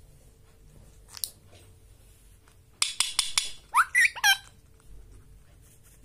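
Indian ringneck parrot calling: a quick run of four or five sharp clicking notes about three seconds in, then three or four short chirps that swoop up and down.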